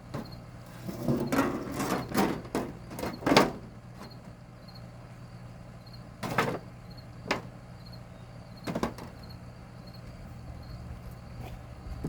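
A few short knocks and clatters of objects being handled, bunched in the first few seconds and then spaced out, over crickets chirping steadily and a low steady hum.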